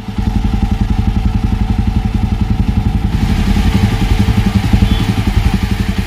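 Jawa 42 Bobber's single-cylinder engine idling, heard close at the exhaust: a steady, even pulsing beat.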